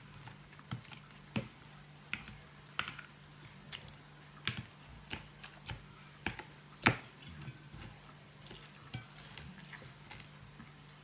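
Eating a lettuce and tomato salad: irregular sharp clicks and taps of cutlery on a dish mixed with chewing, one clack louder than the rest about two thirds of the way through, over a faint steady hum.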